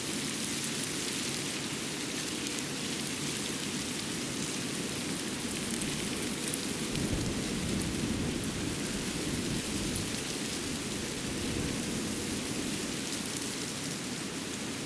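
Winter forest ambience: a steady rushing hiss with faint scattered high ticks, and a low rumble that swells about seven seconds in and then eases.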